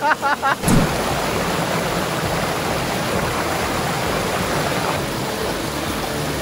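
Steady rushing of a river's water, a constant loud noise that drowns out voices. A brief knock sounds just under a second in.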